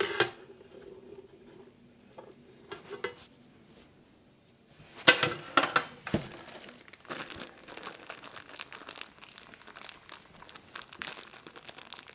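A plastic package of baby carrots crinkling and crackling as wet hands crumple it and pull at it, struggling to tear it open. Quiet at first; the crinkling starts loudly about five seconds in and keeps going in irregular bursts.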